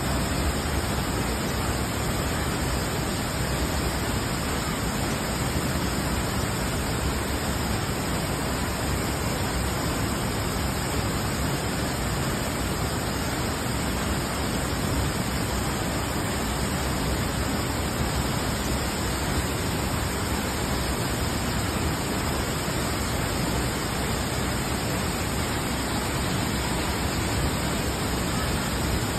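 Cedar Falls, a waterfall, pouring into its pool: a steady, unbroken rush of falling water.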